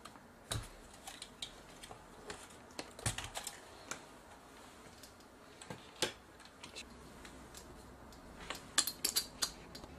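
Scattered clicks and a few dull knocks of the Sony PMW-EX1 camcorder's plastic body and detached handle being handled and turned over during disassembly, with a quick run of clicks near the end.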